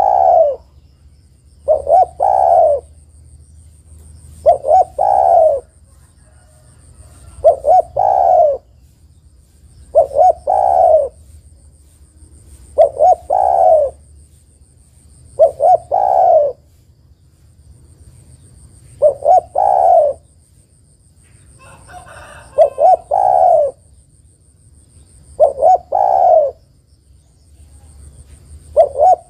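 Spotted dove cooing in a steady series, a phrase about every three seconds. Each phrase is two quick short notes and then a longer, falling coo.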